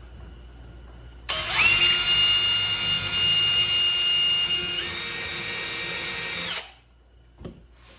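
Electric drill boring a knob hole through a 19/32-inch pine plywood cabinet door. The motor whine starts about a second in, steps up in pitch partway through, and stops suddenly near the end.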